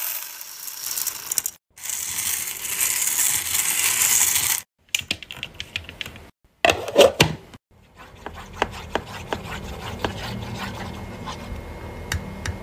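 Hard wax beads poured into the metal pot of a wax warmer, a dense rattling hiss that breaks off and starts again. After that come scattered clicks and knocks. In the second half a wooden spatula stirs melted wax, a run of soft sticky clicks over a low hum.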